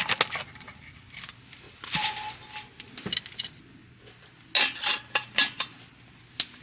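Metal cookware and utensils clinking and clattering in separate knocks, the loudest cluster a little past halfway, one clink ringing briefly.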